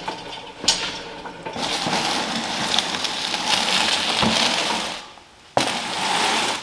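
Shop engine hoist with a pulled V8 hanging from it being rolled across a concrete floor: a rough grinding rumble of casters, broken by a sharp metal clank under a second in and another about five and a half seconds in.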